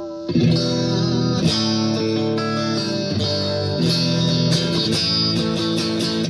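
Electric guitar played clean through a LEKATO R COMP compressor pedal with its sustain turned up: a held chord rings into the start, then new strummed chords and picked notes come in about a third of a second in and ring on.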